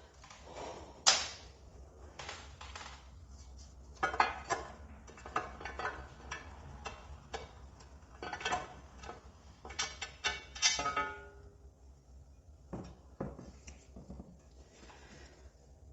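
Metal hand tools and small parts clinking and clanking irregularly, with several sharper knocks and one brief ringing clank about eleven seconds in.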